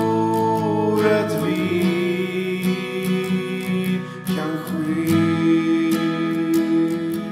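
Background music led by acoustic guitar, with plucked and strummed chords.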